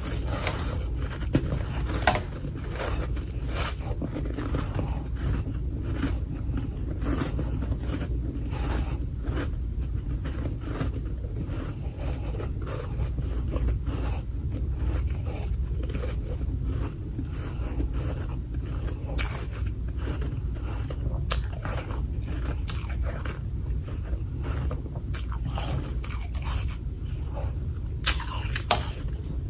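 Close-up biting and chewing of humidifier freezer frost chunks: dense, irregular crunching and crackling throughout, with a few louder sharp bites about two seconds in and near the end.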